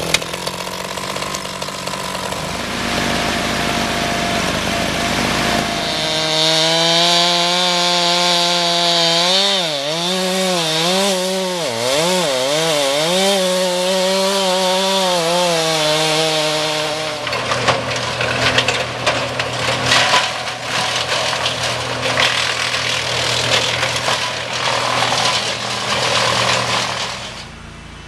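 Chainsaw running and cutting through a dead oak log. Its engine pitch wavers up and down under load in the middle stretch, then runs lower and rougher with crackling, before dropping to a much quieter level near the end.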